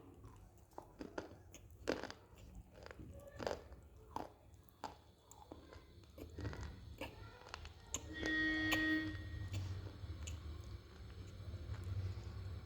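Close-up crunching and chewing of dry multani mitti (fuller's earth clay): a string of sharp cracks and crumbles as the chalky clay is bitten and chewed. About eight seconds in, a brief pitched tone sounds for about a second.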